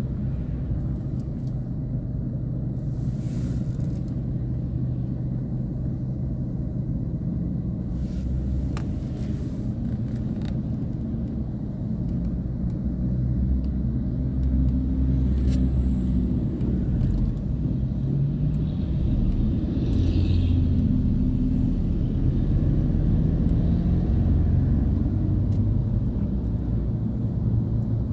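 Low, steady rumble of a car's engine and tyres heard from inside the cabin in slow traffic. It grows a little louder from about halfway through as the car moves off.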